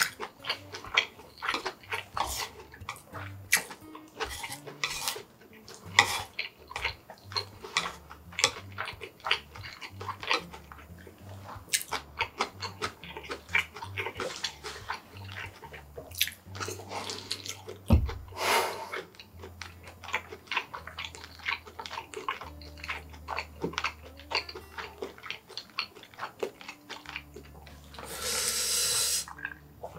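Close-miked eating sounds: wet chewing and slurping of yakisoba noodles, with many small clicks of wooden chopsticks against a wooden plate and bowl. A longer slurp comes near the end.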